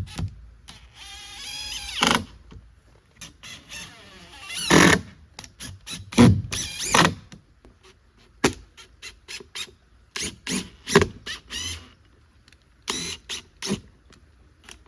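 Woodworking by hand on reclaimed lumber: irregular knocks and clicks, with several short squealing scrapes of the wood or a tool binding under friction.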